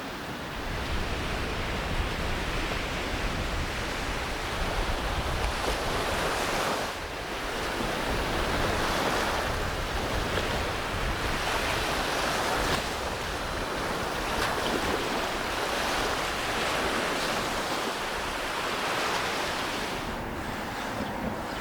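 Sea surf breaking and washing on a sandy beach, swelling and easing with each wave, with wind rumbling on the microphone.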